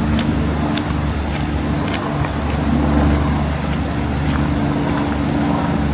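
Steady low hum of an engine running, with a constant pitch and a hiss of background noise over it.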